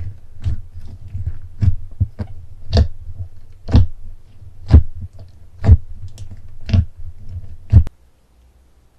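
Slime being squeezed and pressed by hand: squelching pops about once a second, with softer squishes between, stopping suddenly about eight seconds in.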